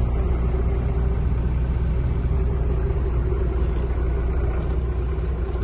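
Truck's diesel engine running steadily at low revs, a low even rumble with a faint steady hum.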